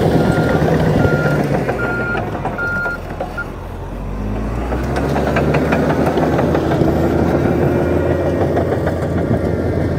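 Komatsu crawler bulldozer working: its reverse alarm beeps about once a second for the first three seconds, then the diesel engine runs steadily under load with clanking from the tracks as it pushes.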